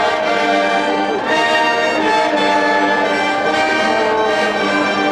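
Marching band brass playing a series of loud, held chords, with trombones and trumpets prominent.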